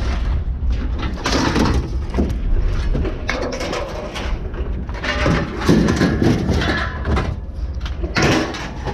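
Engine running at a steady low rumble, with irregular clattering and scraping over it in several bursts.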